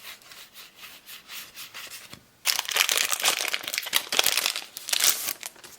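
Trading card booster pack being opened: soft rustling of cards at first, then, about two and a half seconds in, loud crinkling and tearing of the pack wrapper for about three seconds.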